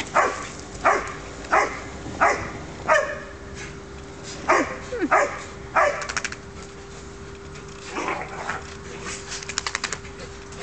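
Dogs barking in play: short barks that fall in pitch, about one every two-thirds of a second, eight of them in the first six seconds. A few softer ones come near eight seconds, then a quick run of clicks near the end.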